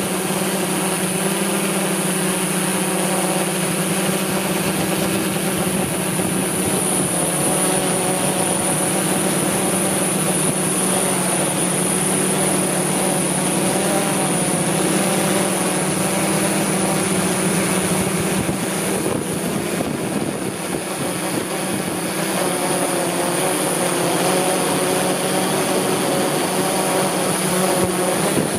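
DJI S1000 octocopter's electric motors and propellers running steadily in flight: a loud, even hum with a thin high whine above it, its higher tones shifting slightly in pitch now and then as the drone moves.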